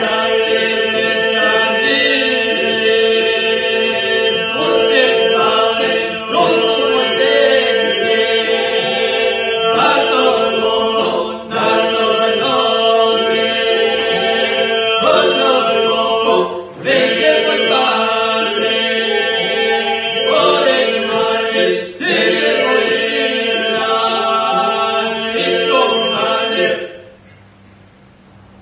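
Albanian Lab polyphonic singing by a group of young men: the group holds a steady drone (the iso) beneath solo lines that rise and fall above it. The song moves in phrases of about five seconds with brief breaths between them, and stops shortly before the end.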